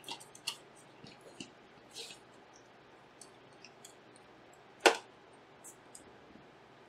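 Small clicks and taps from handling graphics card parts and small tools during reassembly, scattered irregularly, with one sharp, much louder click about five seconds in.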